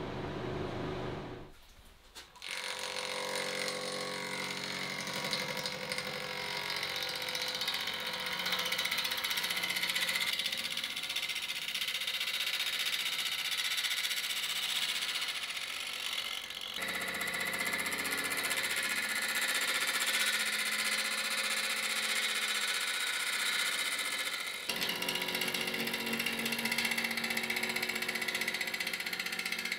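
Wood lathe spinning a burl-and-resin blank while a gouge cuts it: a steady hiss of the cut over the lathe's hum. The sound drops out briefly about two seconds in and shifts twice later, at edits between shots.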